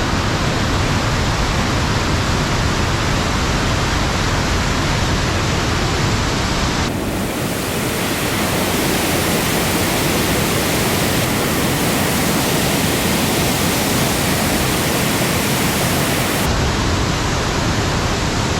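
Loud, steady rush of swollen monsoon floodwater flowing at the Erattayar tunnel. The rush turns brighter and hissier about seven seconds in, then changes back near the end.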